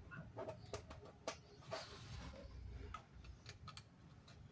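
Faint, scattered small clicks and a brief rustle from handling a micro SIM card and the plastic GSM auto-dialer unit as the SIM is inserted.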